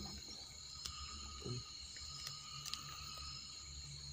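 Night insects trilling steadily at several pitches, with a few faint clicks and scrapes as termite mushrooms are pulled from the soil and handled.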